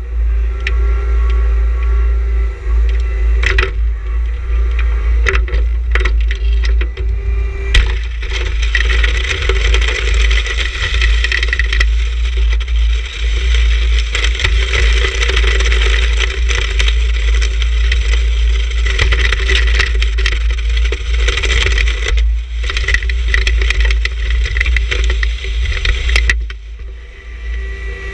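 Snow crunching and scraping against a tractor-mounted snow pusher as it is pushed through deep snow, a dense crackling hiss. Under it the John Deere 1026R's diesel engine runs steadily with a low rumble and hum.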